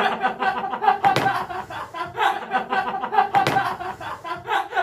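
Several young men laughing hard together in quick repeated bursts, with two sharp smacks of a hand clap or slap about a second in and past the middle.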